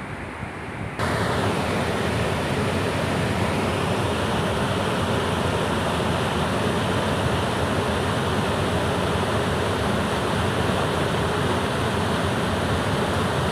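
Steady, loud rush of whitewater pouring over rocks in a river rapid, starting abruptly about a second in. Before it, a low wind rumble on the microphone.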